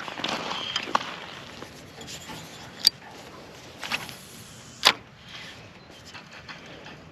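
Creek water rushing steadily, with rustling and two sharp knocks about three and five seconds in.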